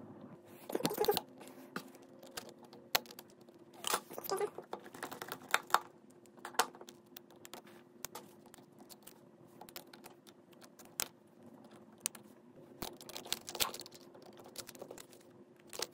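Scattered light clicks and taps of metal tweezers and small parts against the opened Samsung Galaxy Fold 3's frame and internal brackets, coming in irregular little clusters. A faint steady hum runs underneath.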